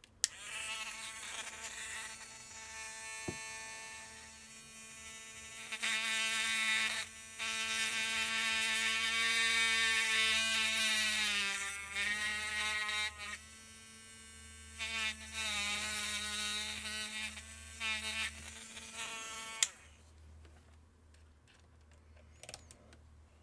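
Small handheld electric hobby drill running with a steady whine while drilling a hole into a plastic action-figure part. Its pitch sags briefly a few times under load, and it stops about twenty seconds in.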